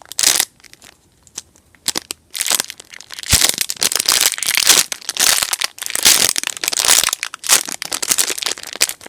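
Plastic packaging around squishy toys crinkling and crackling as it is handled. It starts in short bits, then runs almost without a break from a couple of seconds in.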